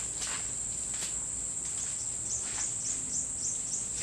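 Steady high-pitched drone of forest insects, with rapid chirping pulses in it during the second half and a few faint brief rustles.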